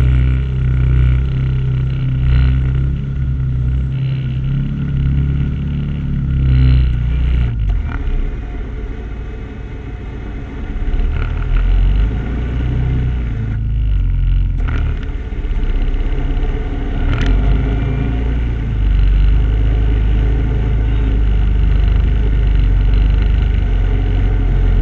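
Vehicle engines running steadily during a winch recovery, a Can-Am off-roader's winch pulling a truck stuck in a flooded mud trail. The low engine note shifts about eight seconds in, with a few short clicks later.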